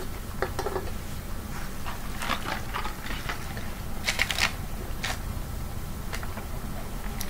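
A person sipping soda through a straw from a paper cup: a few short sips and small clicks, the loudest just after four seconds in.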